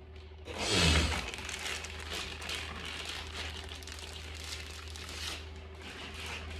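Plastic packaging being crinkled and rustled while the soundbar is unwrapped. It is loudest in a sudden handful about a second in, then goes on as steady crackly rustling.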